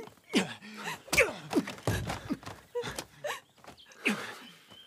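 Two men fighting: strained grunts and gasps mixed with a quick series of sharp thuds from punches and bodies colliding, the heaviest thuds about two and three seconds in.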